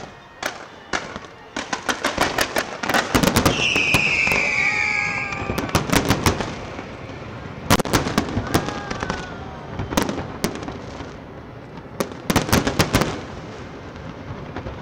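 Aerial fireworks shells bursting in rapid volleys of sharp bangs and crackles, bunched about two to three seconds in, around eight, ten, and twelve to thirteen seconds. A high shrill tone sounds over the bangs for about two seconds near the four-second mark.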